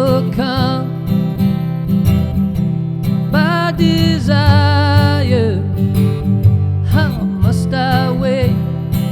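Acoustic guitar strummed steadily, with a melody line above it that holds long notes with vibrato twice, about three seconds in and again near the end.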